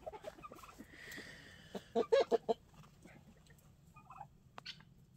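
Domestic fowl on their night roost giving a quick run of three or four short calls about two seconds in, then a couple of fainter calls, and a single sharp tap near the end.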